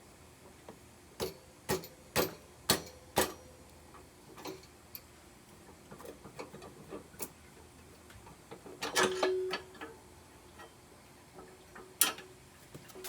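Metal parts and tools knocking and clinking during work on a mini bike's wheel and axle. There are five sharp strikes about half a second apart early on, then scattered lighter clinks. A cluster of knocks with a brief ringing tone comes about nine seconds in, and one more sharp strike near the end.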